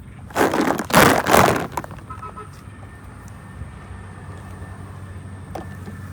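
Crackly hand-handling noise for about a second and a half, starting about half a second in, then only a faint steady low hum.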